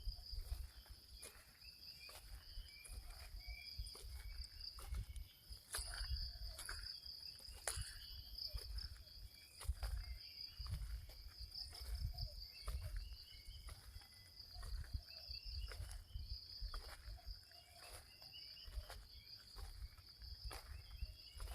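Insects chirring steadily in a high, pulsing trill, with short chirping calls repeated over and over by small birds. Irregular low thumps and rumble run underneath.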